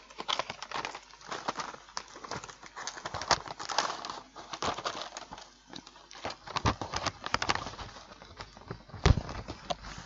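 A cardboard food box and its inner packaging being pulled and torn open by hand: irregular crinkling and tearing with many small sharp clicks, and a louder snap near the end.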